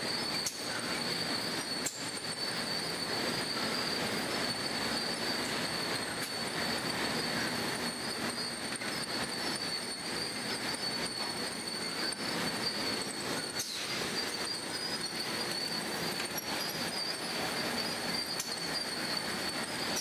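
Biscuit packing line running: steady clattering machinery noise from the chain conveyors and tray transfer, with a constant high-pitched whine.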